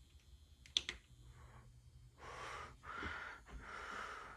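A single pull-chain click about a second in, then the Hunter Beacon Hill ceiling fan's motor starting up on low speed with a faint steady hum. Breathing close to the microphone is heard over it in several even swells.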